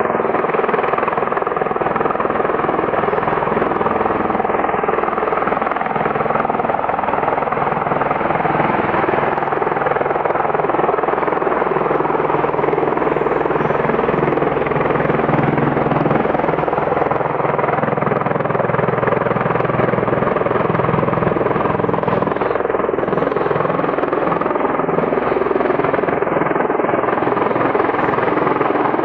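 Bell Boeing MV-22 Osprey tiltrotor flying in helicopter mode with its nacelles tilted up: the loud, steady noise of its proprotors and turboshaft engines, holding even throughout.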